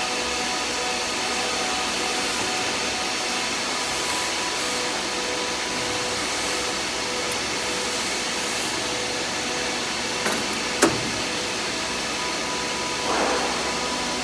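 Xinlei rotary screw air compressor running steadily: an even, loud whirring hiss with a few faint steady tones in it. A sharp click just under 11 seconds in.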